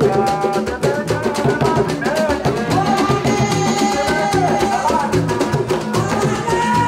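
Several hand drums, congas among them, beaten together in a fast, dense rhythm while a woman sings into an amplified microphone.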